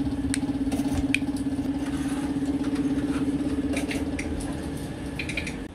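A motor running steadily with a fast flutter, with a few light clicks of plastic switch parts being handled.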